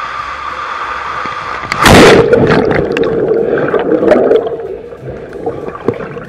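Rider and water rushing down an enclosed water-slide tube, then a loud splash just before two seconds in as the rider plunges into the pool. After it comes muffled underwater gurgling and bubbling, fading over the next few seconds.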